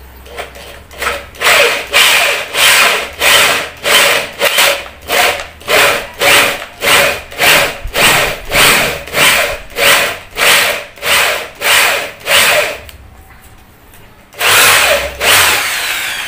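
Corded power drill boring a concealed-hinge cup hole in a wooden cabinet door, run slowly in short pulses of the trigger about twice a second. After a pause near the end it gives one longer run that winds down.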